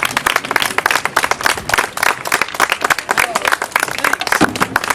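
Crowd applauding: many hands clapping in a dense, steady patter.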